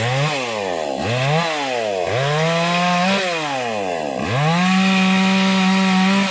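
Maximus 57cc two-stroke chainsaw revved up and let back four times. The last two times it is held at high revs, for about one and then two seconds, as it cuts into teak limbs.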